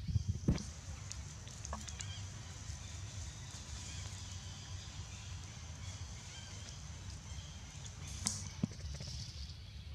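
Scattered crackles of dry leaf litter as macaques move over it, a few sharp ones near the start and again near the end, over a steady high hiss and low rumble.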